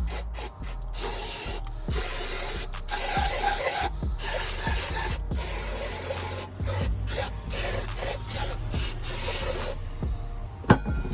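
Engine degreaser sprayed onto the VR6 cylinder head, hissing in several long bursts with short pauses between them. Two sharp clicks near the end.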